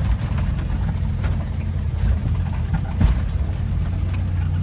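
Car heard from inside the cabin: a steady low engine and road drone, with scattered light taps over it.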